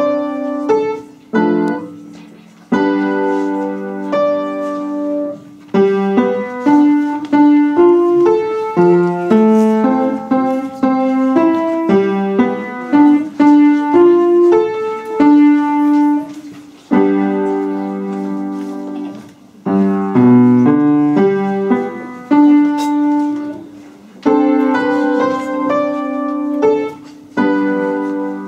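Upright acoustic piano played solo: a student's recital piece in chords and melody, phrases separated by short pauses.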